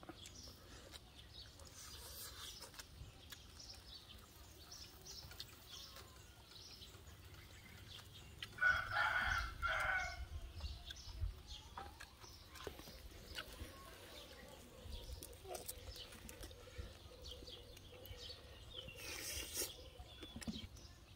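A rooster crows once, about nine seconds in, in several linked parts, over faint chirping of small birds.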